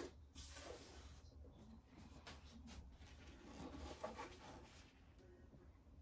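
Faint rubbing and light knocks as a canvas is held and tilted with gloved hands, over a low steady hum.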